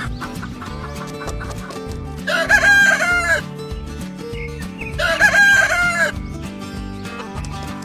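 A rooster crowing twice, each crow about a second long with a wavering pitch, about three seconds apart, over background music.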